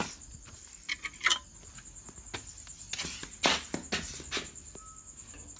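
Crickets trilling steadily in the background, with a few sharp knocks and rustling noises, the loudest about a second in and midway through.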